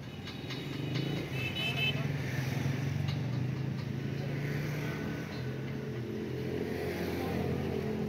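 A motor vehicle engine running steadily, its low hum stepping in pitch a few times. In the first two seconds there are light metallic clicks and ticks from the small parts of a brass door lock cylinder being worked by hand.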